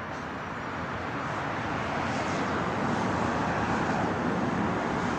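Road traffic noise, a vehicle passing. It swells to its loudest about three to four seconds in and then eases off.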